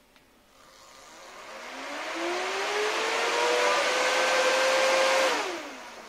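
A newly fitted small electric blower fan in an inflatable costume, run from a battery as a test: it spins up with a rising whine and a growing rush of air, runs at full speed, then is cut off about five seconds in and winds down with a falling whine. It is working properly.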